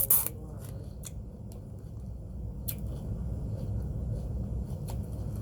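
Scattered light clicks and taps from eating and handling a bowl of takeout pho, the loudest just at the start, over a steady low rumble.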